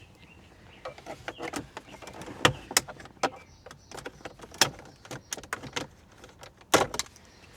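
Scattered clicks and knocks of plastic car interior trim being pulled off and handled, with two louder snaps, one about two and a half seconds in and one near the end.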